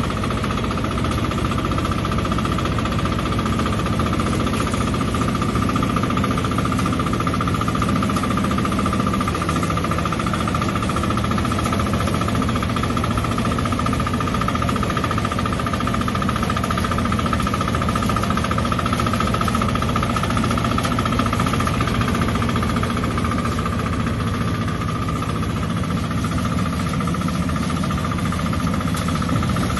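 Mini tractor and the engine-driven grass chopper it tows running steadily while the chopper cuts tall grass and blows it into a mesh cage trailer. A steady high whine sits over the continuous engine noise throughout.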